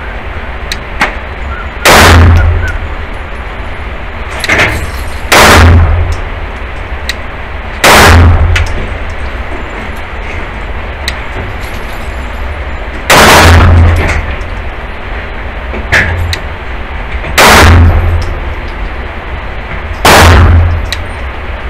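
A 9mm pistol fired six times in slow, deliberate fire a few seconds apart, each shot sharp and loud with a ringing echo off the indoor range. Two fainter shots from other lanes fall in between.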